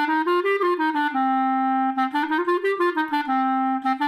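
Clarinet playing a slow tongued practice figure twice: a run of separately articulated notes up and back down, ending on a held note. It is a scale double-tonguing exercise that mixes 'ta' and 'ka' tongue strokes.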